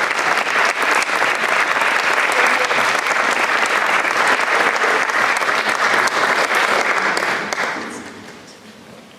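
Audience clapping in a hall, a dense steady patter of many hands that dies away about eight seconds in.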